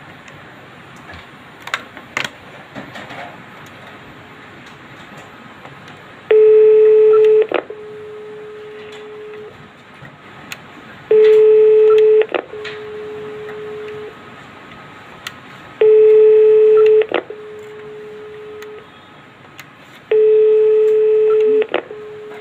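Outgoing CO trunk line dial tone heard through an Iwatsu key telephone's speaker four times, about every four and a half seconds, as outgoing trunk lines are tried in turn. Each time a steady low tone comes on loud for about a second, then after a button click it drops to a quieter tone that runs about two seconds more and stops. A few button clicks come about two seconds in.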